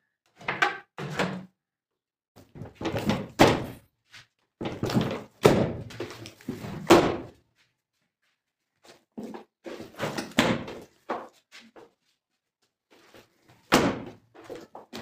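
Bread dough being handled in a steel tub: heavy thuds and slaps as the mass of dough is dropped in from the kneading machine and punched down by hand, coming in bursts with short pauses between.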